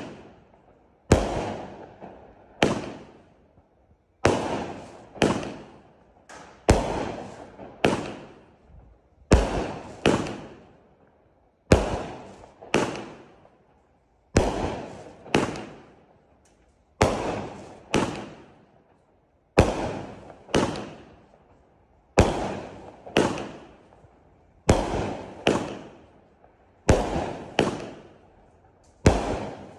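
Bright Star 'Traffic Jam' BS8041 500-gram fireworks cake firing shot after shot: a sharp bang about every second, often two close together, each fading away over about a second.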